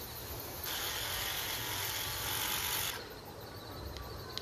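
Crickets chirping. About half a second in, a steady hiss comes in over them and cuts off suddenly near three seconds.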